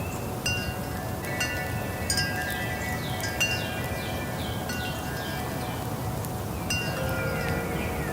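Wind chimes ringing, their several tones struck at irregular moments by the wind and left to ring on.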